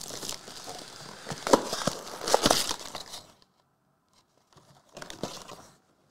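Plastic shrink wrap being torn and crumpled off a cardboard box of trading cards: a crinkling rustle with sharp crackles for about three seconds. After a short pause comes a briefer rustle as the box is opened.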